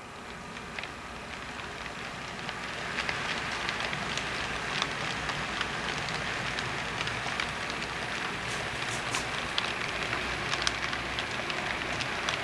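Model freight train rolling along the track: a steady clatter of wheels with many small clicks over the rail joints, growing louder about two seconds in as the train pulls away and the cars pass close by.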